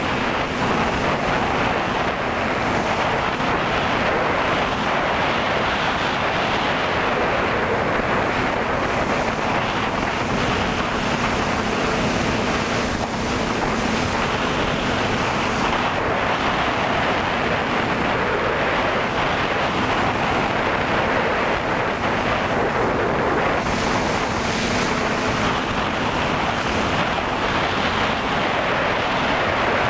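Multirotor drone's propellers and motors heard through its onboard camera's microphone: a steady rushing noise with a faint low hum that comes and goes.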